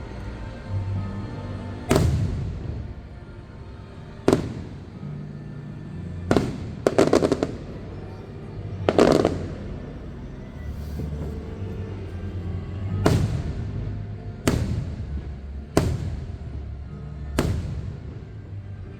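Fireworks shells bursting overhead: about nine separate booms a second or few apart, with a quick rattle of crackling bangs about seven seconds in, over the show's music.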